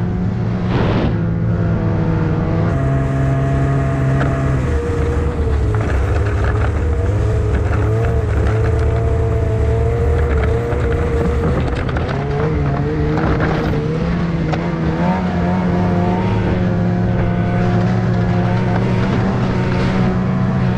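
Snowmobile engine running steadily under way, its pitch shifting a few times.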